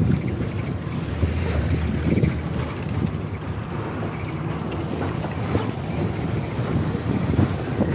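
Low, steady rumble of a bus driving over a dirt track, with wind buffeting the microphone at the open window.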